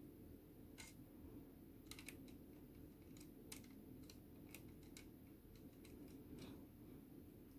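Faint, scattered small clicks and taps of a plastic scale model kit being handled in the fingers, over a low steady hum.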